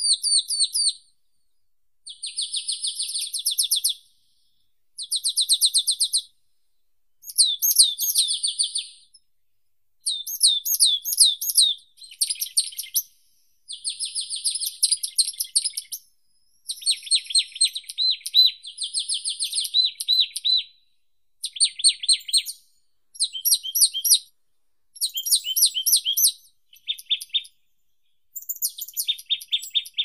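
A songbird singing a run of short, varied phrases of quick repeated notes, each one to three seconds long, with brief pauses between them.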